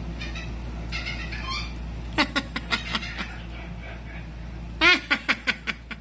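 Cockatoo giving two runs of short, rapid, sharp calls, about six in each. The first run starts about two seconds in; the second starts with the loudest call just before five seconds in.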